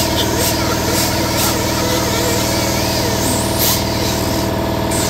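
Reciprocating air compressor running steadily, its motor and pump humming evenly, with several short hisses of air over it.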